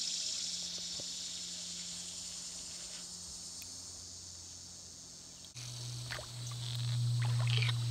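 Steady high-pitched drone of summer insects, slowly fading. After an abrupt cut about five and a half seconds in, a louder steady low hum takes over, with a few light knocks.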